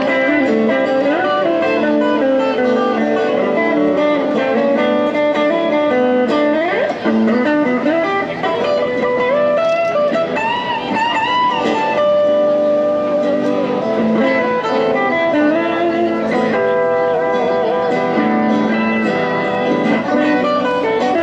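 Guitar playing a bluesy melody, with notes bent and wavering in pitch.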